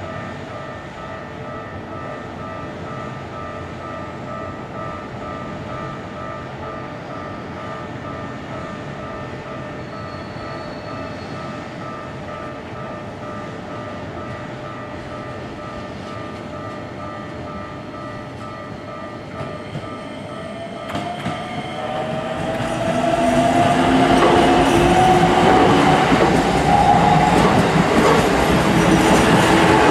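A Japanese level-crossing warning bell rings in an even, pulsing pattern. About twenty seconds in, a Keikyu 2100-series electric train approaches and passes the crossing, growing much louder, with a rising motor whine and wheels clacking over rail joints.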